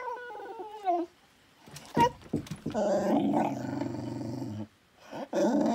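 Russian hunting spaniel vocalising while begging: a falling whine at the start, a brief sharp sound about two seconds in, then a long, low, steady moan of about two seconds, and another whine near the end.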